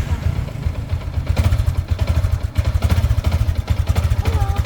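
Motorcycle engine running steadily at idle, with a fast, even low beat, shortly after being started.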